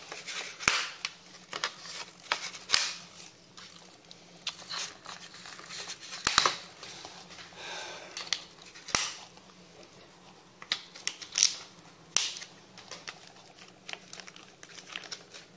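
Small scissors snipping off the tails of nylon zip ties: a dozen or so sharp clicks at irregular intervals.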